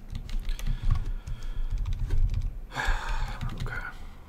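Typing on a computer keyboard: quick, irregular key clicks while a misspelled spreadsheet entry is retyped. There is a brief breathy hiss about three seconds in.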